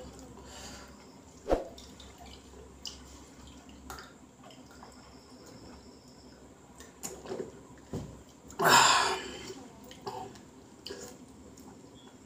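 A man drinking water from a stainless-steel water pot: scattered light knocks and small swallowing sounds, then one loud noisy burst of under a second about nine seconds in.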